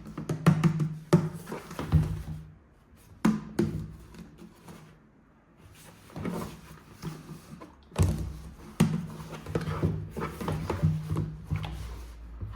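Plastic toy parts being handled, giving a run of irregular clicks and knocks with a quieter stretch in the middle.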